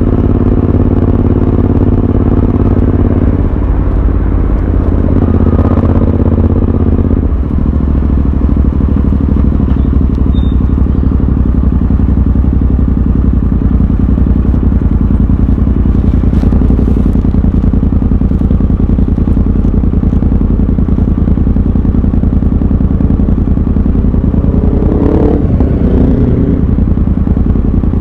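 Royal Enfield Continental GT 650's parallel-twin engine running as the bike rides along. The engine note changes twice in the first eight seconds and rises and falls briefly near the end.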